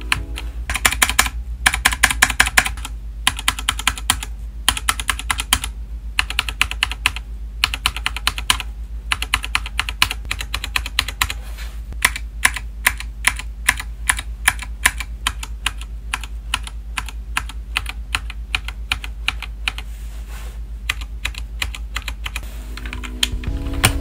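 Typing on a KEMOVE Snowfox 60% mechanical keyboard with brown tactile switches: rapid runs of keystrokes clacking, broken by brief pauses.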